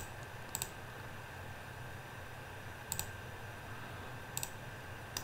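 A few sharp computer-mouse clicks at irregular intervals, each a quick double click of press and release, over a faint steady low hum.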